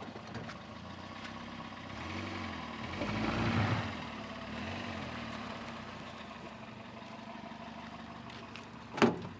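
Car engine running, heard from inside the car: it revs up and eases off about two to four seconds in. A single sharp knock near the end is the loudest sound.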